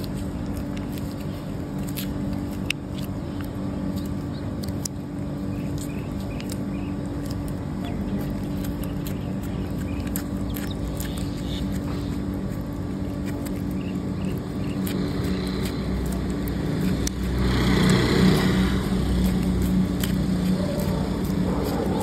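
Steady hum of a motor vehicle engine running, growing louder for a few seconds about three quarters of the way through.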